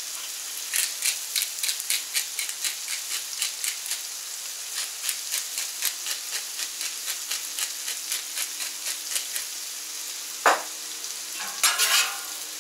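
Diced potatoes sizzling in butter and bacon fat on a Camp Chef FTG600 flat-top griddle, a steady hiss with a run of small quick ticks through most of it. About ten seconds in comes one sharp knock, then a metal spatula scraping under the potatoes near the end.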